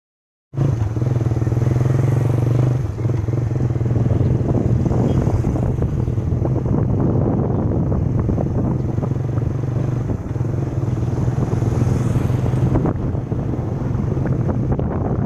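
A motor vehicle's engine running steadily with a low, even hum and a noisy haze of road or wind noise above it, starting about half a second in.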